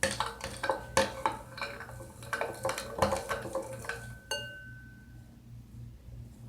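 Spoon clinking and knocking against a bowl while stirring slime: a quick, irregular run of clinks for about four seconds, ending with one clink that rings on briefly.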